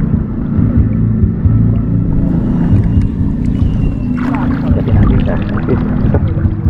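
Small boat engine running steadily with a low drone. From about four seconds in, water splashes and knocks on top of it.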